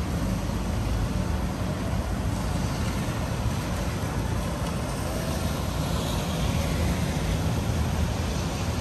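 Steady city traffic noise: a continuous low rumble and hiss of road vehicles, swelling slightly about six seconds in.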